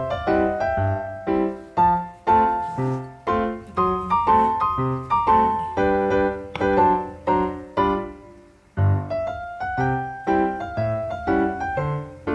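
Background piano music: a quick melody of struck notes, with a brief pause about eight seconds in before it picks up again.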